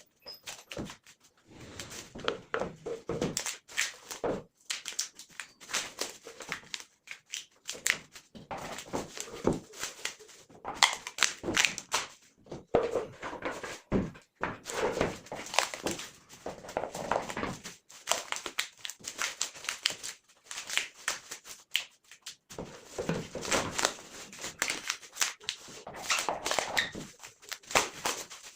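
Irregular knocks, clicks and rustling of hand work with wooden pieces, with no steady machine running.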